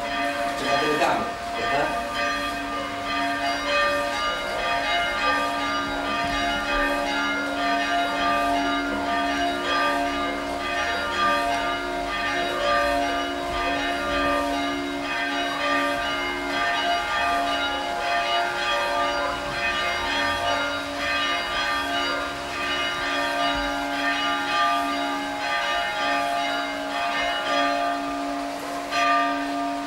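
Church bells rung by hand with ropes, struck over and over so that their tones ring on and overlap in a continuous peal, heard from inside the bell tower.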